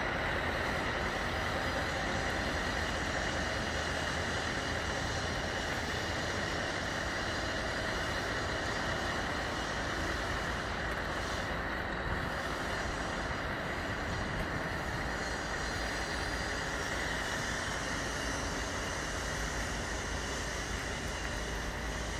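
Steady mechanical drone from parked refrigerated trucks, their engines and refrigeration units running in an even, unchanging hum.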